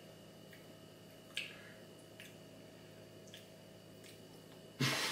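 A few faint, sharp mouth clicks and smacks as food is tasted, the clearest about a second and a half in, then a sudden loud burst of laughter near the end.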